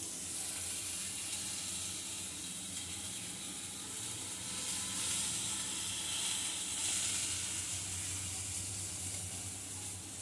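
Hot mustard oil sizzling steadily in a kadai where vola fish are frying.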